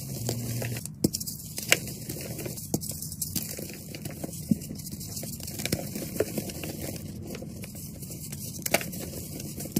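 Star-shaped blocks of reformed gym chalk being squeezed and crumbled in bare hands: a steady dry crunching and crumbling of chalk, with a handful of sharp snaps as pieces break off.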